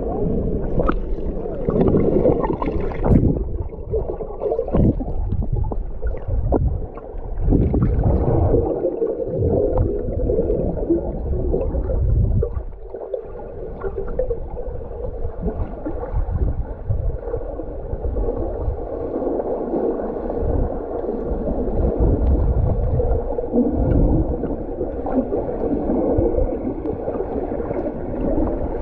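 Muffled underwater sound of water churning and bubbling as swimmers move and kick, with scattered low thumps.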